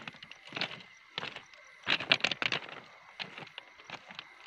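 Footsteps on the gravel ballast of a railway track, a step about every half second, with a denser, louder run of crunching scuffs about two seconds in.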